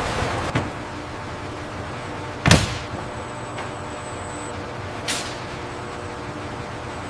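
Steady industrial machinery hum with a few faint held tones, broken by three sudden heavy mechanical hits. The loudest hit comes about two and a half seconds in, a weaker one about half a second in, and another about five seconds in.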